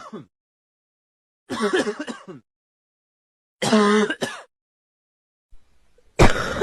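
A person coughing in separate voiced fits about two seconds apart, then a quick run of sharp coughs near the end, demonstrating different types of cough.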